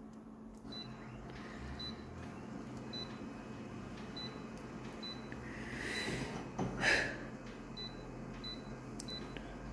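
Photocopier touchscreen giving short, high key beeps as its settings are tapped, about nine in all at irregular spacing, over the machine's steady low hum. A louder, brief noisy sound comes about six to seven seconds in.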